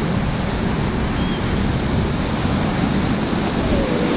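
White-water river rapids rushing steadily around a raft, heard close up, with a low rumble.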